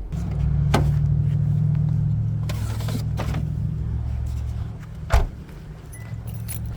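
A car heard from inside the cabin, moving slowly: a steady low engine and road hum with a few light clicks and one sharp knock about five seconds in, after which the hum drops.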